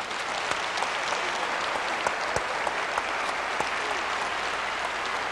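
Audience applauding, swelling up at the start and then holding steady.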